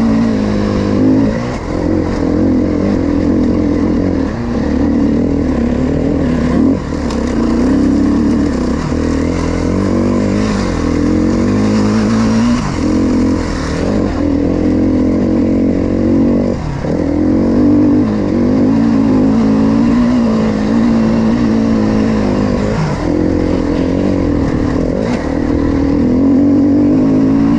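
KTM 350 XCF dirt bike's single-cylinder four-stroke engine working hard on a loose gravel trail, revs rising and falling over and over with throttle and gear changes.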